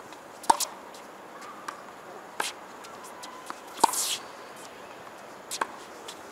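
Tennis ball struck hard by a racket twice, about three seconds apart, each a sharp pop with a short ring. Softer ball knocks fall between the two hits.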